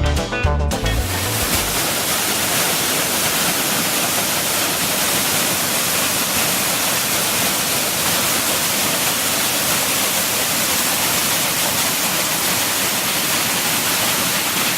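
Waterfall pouring, a steady rushing wash of falling water. Guitar music cuts off within the first second.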